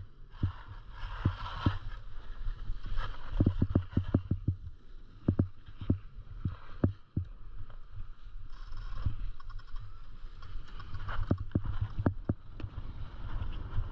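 Skis running and scraping over packed snow on a downhill run, with irregular sharp knocks and a steady low rumble of wind and vibration on a body-mounted action camera.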